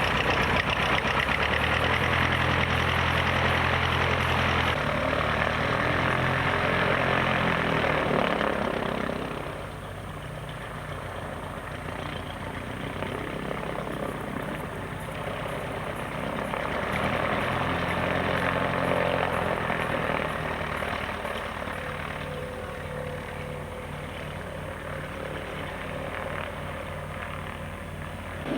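Cessna light aircraft's piston engine and propeller running at low power just after start-up. The engine note drops about nine seconds in, rises again a little past halfway, then eases back.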